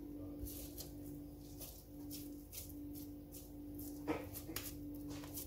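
Faint handling sounds of hands scooping and pressing minced-meat kebab mixture, with light ticks and rustles, over a steady low hum; one sharper tap about four seconds in.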